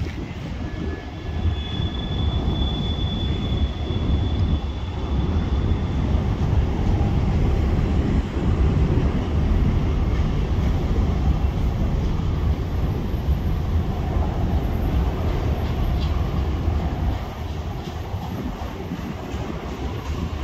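Freight train of autorack cars rolling past, a steady rumble of steel wheels on rail. A thin, high wheel squeal holds for a few seconds near the start.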